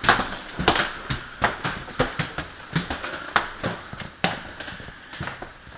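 Footsteps climbing a staircase, about one step every two-thirds of a second, growing fainter toward the end.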